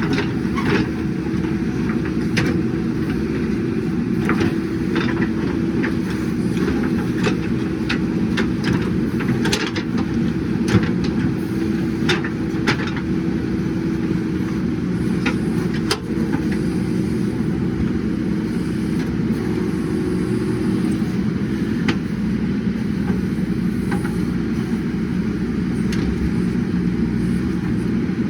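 JCB 3DX backhoe loader's diesel engine running steadily under load, with scattered sharp knocks and clicks, mostly in the first dozen seconds.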